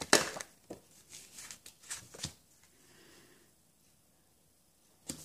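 Snail adhesive tape runner being pressed and run along the back of a cardstock panel: a run of short clicks and rasps over the first two seconds or so, then it goes quiet.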